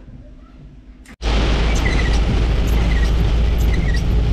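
About a second of quiet room, then a sudden switch to heavy rain on a moving car's windscreen and body with tyre and road noise, heard from inside the cabin: loud and steady, with a deep rumble.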